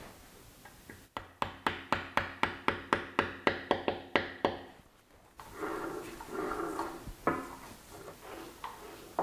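Hand-worked mechanism on an Elliott 10M metal shaper: a run of about fourteen sharp, ringing metal clicks, about four a second, followed by a rougher metal-on-metal rubbing and one more click.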